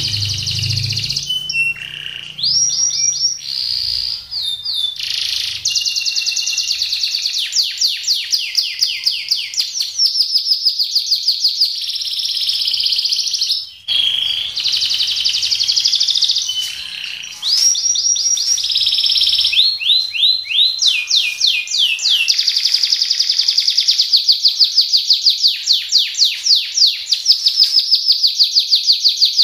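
Domestic canary singing without a break in 'speed roll' style: long runs of fast, rapidly repeated notes, many of them quick downward sweeps, with one short pause about halfway through.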